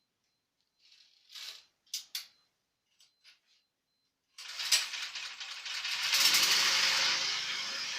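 A few small metallic clicks and clinks, then about four and a half seconds in a multipurpose food grinding machine starts up with a sharp click and runs steadily, louder after a second or so.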